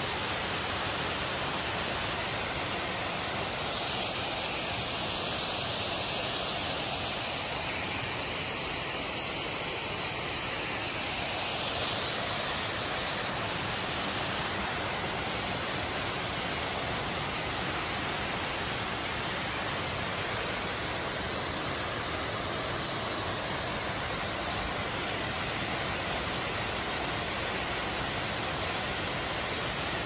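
Waterfall: water pouring down a rock face into a shallow pool, a steady rushing with no break.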